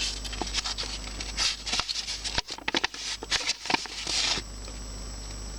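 Toy packaging and its paper insert being handled: irregular rustling and crinkling with small clicks, busiest in the middle.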